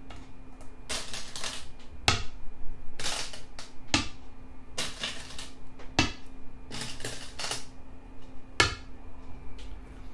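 Go stones being played onto a board one after another as a game sequence is laid out: a series of sharp clacks and short clattering clicks, about one a second.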